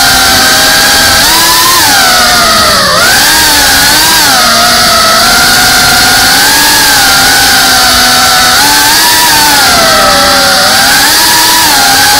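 An FPV quadcopter's brushless motors and propellers whining loudly, the pitch swooping up and down together every second or two as the throttle changes in flight.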